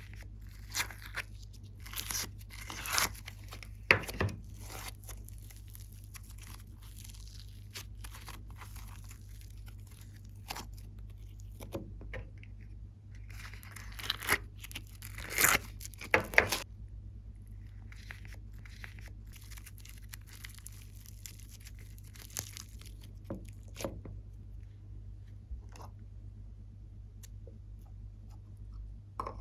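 Hands squeezing and stretching glossy slime: sticky crackles and small pops, louder in clusters a few seconds in and again about halfway through, over a low steady hum.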